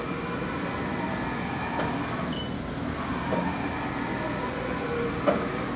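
Haas VF-3 vertical machining center running, its Z axis traversing under servo drive: a steady machine hum with a thin whine, and a few faint clicks.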